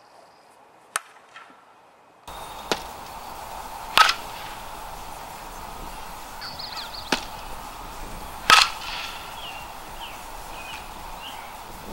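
Fastpitch softball bat striking pitched balls: a series of sharp cracks, the two loudest about four and a half seconds apart with a short ringing ping, fainter knocks between them. Birds chirp in the background.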